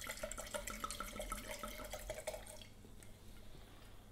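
White wine pouring from a glass bottle into a large wine glass in rapid glugs, trailing off about two and a half seconds in.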